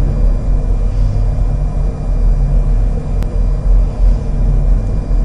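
Steady low rumble, like a vehicle engine, with a single sharp click about three seconds in.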